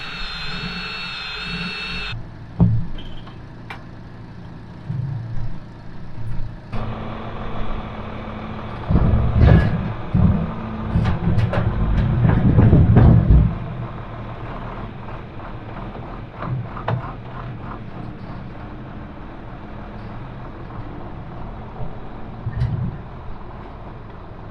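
Diesel farm tractor engine running steadily, with a cluster of loud knocks and clanks in the middle. The sound changes abruptly twice in the first seven seconds.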